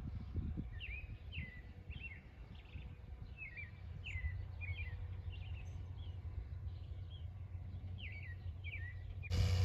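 Small birds chirping over and over, short quick chirps, over a low outdoor rumble. Just before the end the sound cuts suddenly to a louder, steady low rumble.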